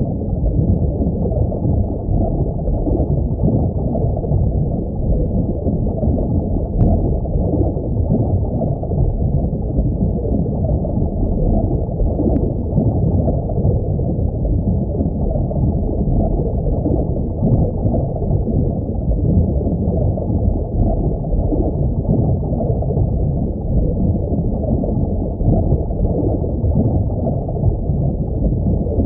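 Underwater ambience: a steady, muffled low rush of water, with a few faint clicks.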